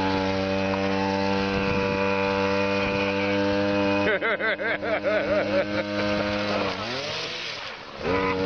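A buzzing engine drone like a small motor, steady in pitch, warbling for a couple of seconds midway. Near the end it sags in pitch and fades, then cuts back in at full strength.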